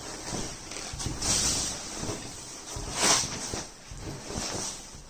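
Saree fabric rustling and swishing as hands gather and fold it, in several separate strokes; the loudest comes about three seconds in.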